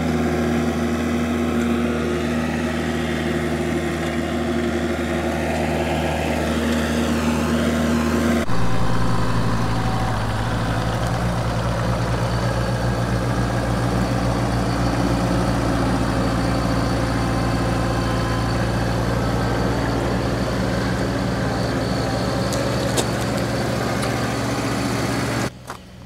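Engine of a Vermeer stand-on mini track loader running steadily. About eight seconds in its note changes to a lower, pulsing throb, and the engine sound drops away just before the end.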